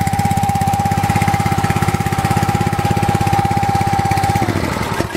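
A small single-cylinder stationary petrol engine runs steadily on methylated spirits instead of petrol, with a steady whine over its firing. Near the end it slows, the whine dropping in pitch, and it stops.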